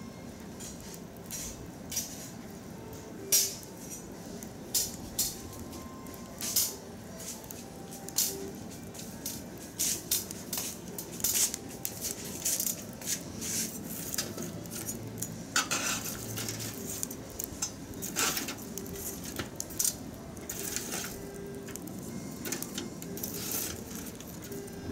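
Wood and charcoal fire crackling in a metal bucket stove: irregular sharp pops and clicks, coming thickest in the middle of the stretch.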